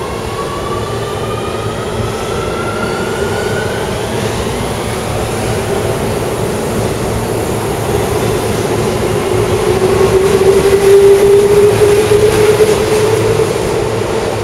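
Keio Line electric commuter train pulling out of the station and accelerating past: a motor whine rises in pitch over the first few seconds, and the running noise grows steadily louder as the cars go by, loudest just before the last car clears near the end.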